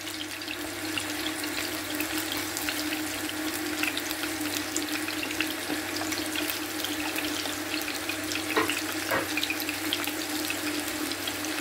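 Whole tilapia sizzling in a little oil in a non-stick frying pan: a steady crackle of small pops, with a steady low hum underneath and two light knocks near the end.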